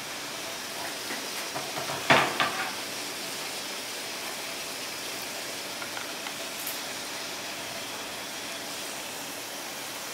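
A metal steamer lid coming off the cookware with a couple of sharp clanks about two seconds in, then a few faint clicks, over a steady hiss.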